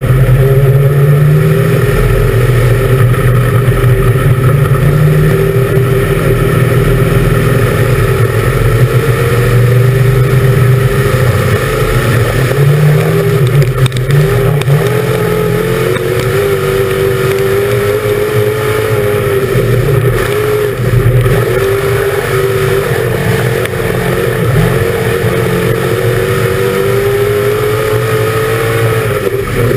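Dirt-track race car's engine at race speed, heard from inside the cockpit: loud and continuous, its pitch rising and falling with the throttle, dipping briefly a few times.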